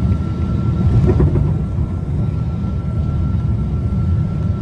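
Airliner cabin noise heard from inside the passenger cabin: a loud, steady low rumble of engines and airflow with one thin, steady high whine over it.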